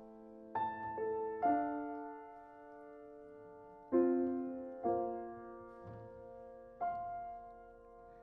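Piano playing slow, sustained chords as the introduction to a song. A new chord is struck about every one to two seconds, and each one rings and fades.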